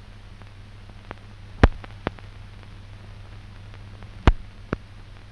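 Surface noise of an old newsreel film soundtrack: a steady low hum under hiss, with two loud pops about a second and a half and four seconds in, each followed half a second later by a fainter click.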